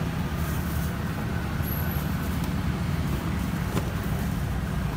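Steady low rumble of road traffic, with a few faint light clicks over it.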